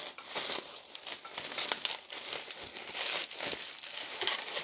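Plastic bubble wrap crinkling as hands unwrap a product from it: an irregular run of rustles and small crackles.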